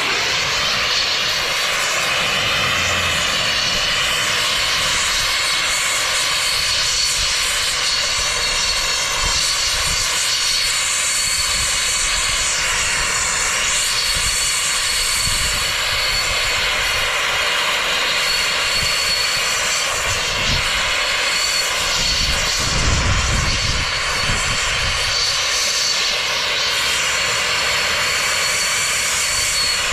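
TurboTorch soldering torch fitted with a large high-output tip, burning steadily: an even, continuous roar with a thin high whistle in it.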